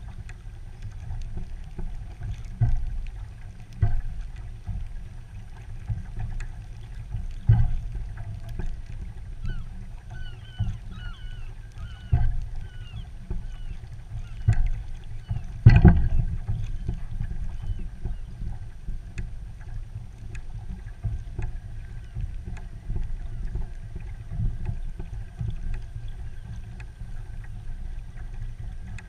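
Muffled low rumble of a Hobie pedal kayak underway on bay water, heard through a waterproof camera housing, with irregular dull thumps every few seconds; the loudest comes about sixteen seconds in. A short run of high chirps sounds about ten seconds in.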